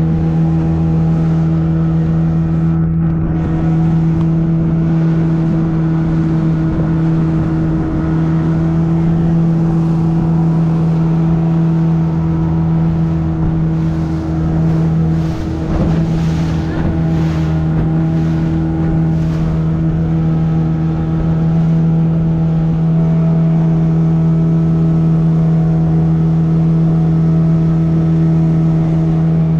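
A motorboat's engine running steadily at cruising speed, one constant low pitched drone heard from on board, with water rushing and splashing against the hull, a little more around the middle.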